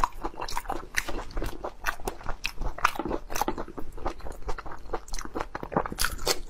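Close-up mouth sounds of eating: biting into and chewing raw prawn meat and a piece of crisp green vegetable, with many quick wet crunches and clicks.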